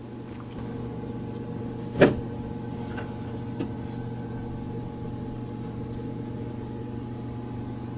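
Steady low machine hum, with a sharp click about two seconds in and two fainter ticks soon after as small plastic parts are handled.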